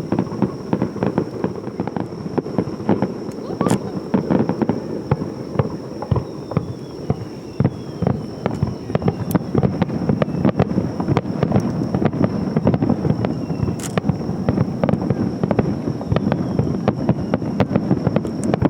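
Aerial fireworks display: a continuous rapid barrage of bangs and crackles as many shells burst, over a faint steady high tone.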